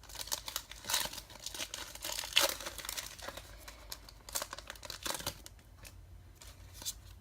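Foil wrapper of a Pokémon trading card booster pack being torn open and crinkled, in dense crackling for the first three seconds, loudest about two and a half seconds in, then a few shorter rustles.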